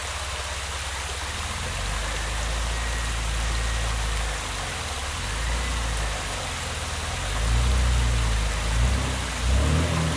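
Off-road vehicle engine idling, its low rumble swelling twice in the last few seconds, over a steady rushing hiss of creek water.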